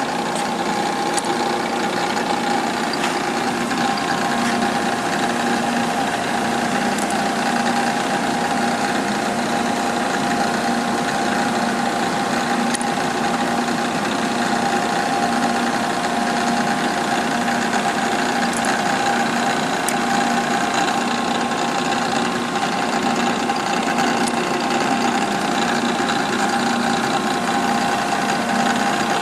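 Cincinnati universal cylindrical grinder running under power, a steady mechanical hum of several held tones with a few faint ticks.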